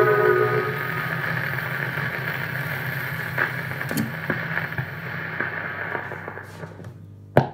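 The last notes of an orchestral record die away into steady surface hiss and scattered crackles as the stylus of a Концертный record player runs into the run-out groove, over a low motor hum. One sharp loud click comes near the end.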